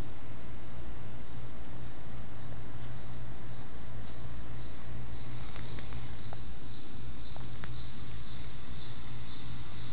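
Insects chirping in a steady rhythm of high-pitched pulses, about two a second, over a low steady rumble. A few faint clicks in the middle come from the dog gnawing a block of ice.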